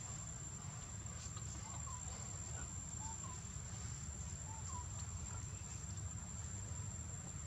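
Outdoor ambience: a steady high-pitched insect drone over a low rumble, with a few faint short chirps scattered through it.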